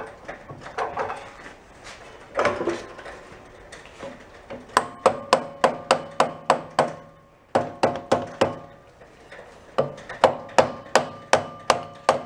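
Soft-faced mallet tapping a steel drum onto a lathe-turned shaft, driving it on for a tight test fit. The taps come in two quick runs of about four a second, each with a short metallic ring from the drum.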